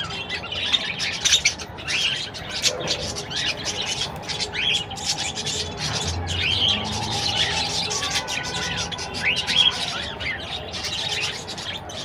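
A flock of budgerigars chirping and chattering without a break, many short warbling calls overlapping one another.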